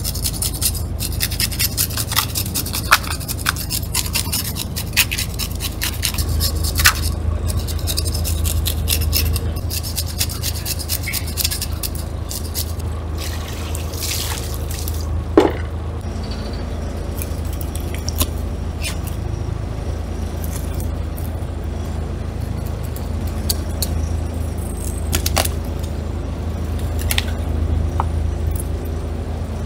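A hand-held metal fish scaler scraping scales off a fish on a plastic cutting board in quick, rapid strokes, over the steady low hum of the boat's diesel engine. About fourteen seconds in, water is poured from a bucket over the fish, and near the end a few scattered knife scrapes and taps follow.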